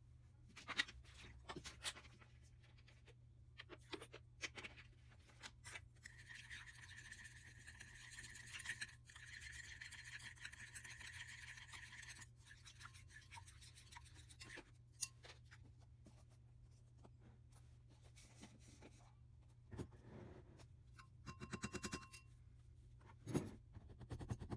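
Faint scraping and clicking of a plastic spoon stirring a wet slime mixture in a bowl. Scattered taps are joined by a steady stretch of scraping about six seconds in, and a short squeak and a sharp click come near the end.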